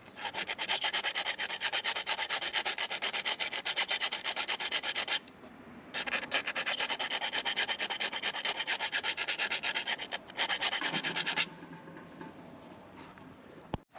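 Rapid back-and-forth hand sanding strokes in two long spells, with a short pause about five seconds in. The sanding stops about eleven and a half seconds in.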